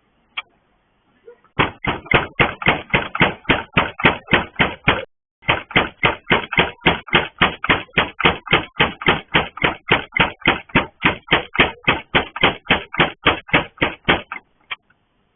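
Rapid, relentless knocking on a gate, about six blows a second, with a brief break about five seconds in and stopping just before the end.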